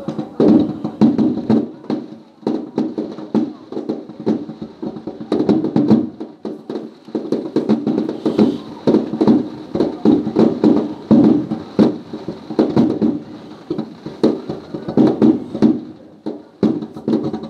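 Aerial firework shells launching and bursting in rapid, overlapping succession: a dense barrage of booms and bangs, with only short lulls between volleys.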